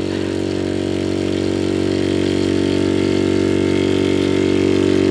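Electric makeup brush cleaner running, its motor spinning brushes in its water reservoir with a steady, even hum.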